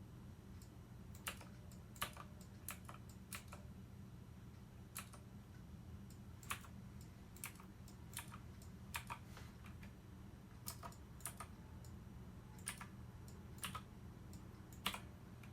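Irregular clicks of keys or buttons being pressed, about one a second, over a faint steady low hum.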